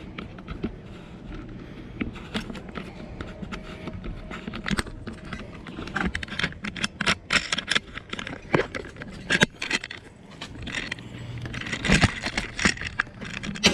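Rattling clicks, knocks and scrapes of a bicycle being handled and wheeled among parked bikes, denser and louder from about halfway through.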